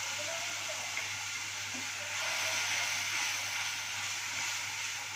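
Onion, ginger and garlic paste with a little water sizzling in an aluminium pan, a steady hiss, while a wooden spatula stirs it with a few light scrapes.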